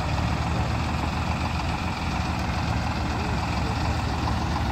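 PowerTrac tractor's diesel engine running steadily as it pulls a loaded trolley.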